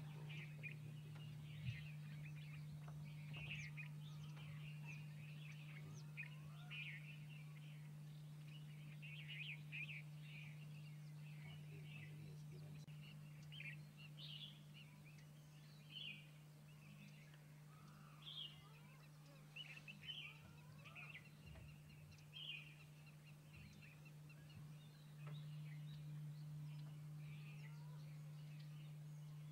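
Many small birds chirping and calling, with short high chirps scattered all through, over a steady low hum. There is one sharp click near the start.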